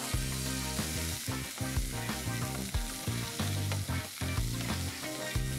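Pieces of beef oxtail sizzling steadily in hot olive oil in a frying pan as they are turned with metal tongs to brown on all sides. Low background music runs underneath.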